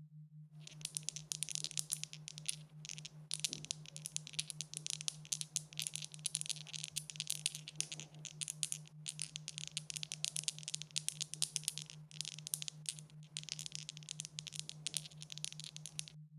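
Dice rattling as they are shaken: a dense, continuous clatter of rapid small clicks lasting about fifteen seconds, starting and stopping abruptly. A steady low electrical hum lies underneath.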